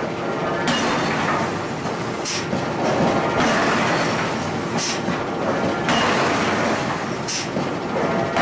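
Steady industrial din of forge-shop machinery, with a few sharp metallic clinks scattered through it.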